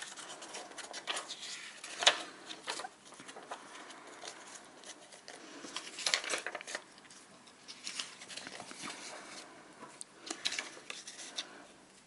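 Paper rustling and crinkling as loose sheets of paper ephemera and photo cards are handled and shuffled. The sound comes in short, irregular rustles, with a louder one about two seconds in.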